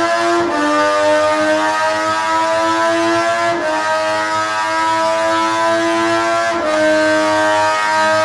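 Sport motorcycle engine running flat out on a dyno rolling road: a loud, high engine note that climbs slowly in pitch and is broken three times by quick upshifts, each a brief dip in pitch, about half a second, three and a half and six and a half seconds in.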